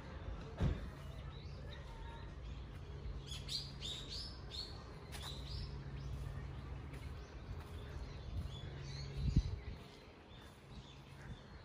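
Small songbirds chirping in the trees, with a quick run of short down-slurred chirps a few seconds in, over a steady low hum. Two dull low thumps, about a second in and again late on, the second the loudest sound.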